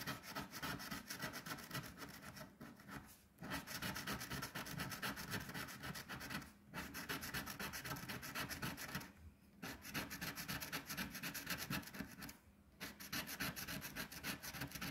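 A coin scraping the coating off a scratch-off lottery ticket in quick, rapid strokes. The scraping comes in runs of about three seconds, broken by brief pauses as each row of numbers is uncovered.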